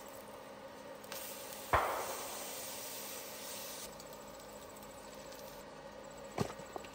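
Camp cooking sounds: one sharp knock about two seconds in that rings briefly, with a hiss around it, then a few light clicks near the end, over a steady hum.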